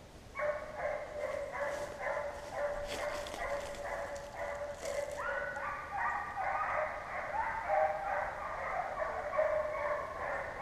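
Pack of hunting hounds baying and barking in repeated, overlapping calls as they run a deer's trail. More dogs' voices join and overlap about halfway through.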